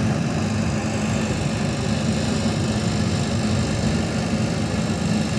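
KOEL diesel generator set running steadily, a constant low engine hum.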